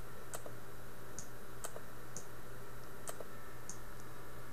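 Computer mouse clicking, a handful of short, light clicks spaced irregularly about half a second to a second apart, over a steady low electrical hum.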